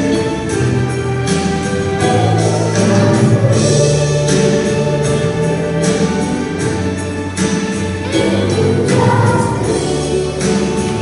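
Music with a choir singing over instruments and a steady beat.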